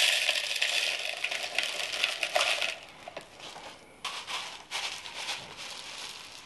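Thin clear plastic plant pot crinkling and crackling as it is squeezed and the packed root ball is worked loose, dense for the first few seconds, then softer scattered crackles after a short pause.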